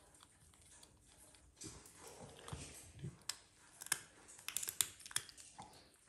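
Irregular sharp clicks and crackles of a nut being bitten and picked at, with soft rustling of bedding. The clicks bunch together in the second half.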